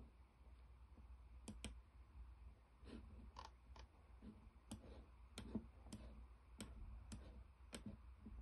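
Faint computer mouse clicks, about a dozen single clicks at irregular intervals, over a low steady hum.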